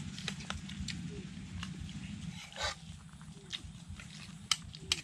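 A dog whining faintly in three short whimpers, over a low hum that fades out about halfway and light clicks and taps of a meal being eaten.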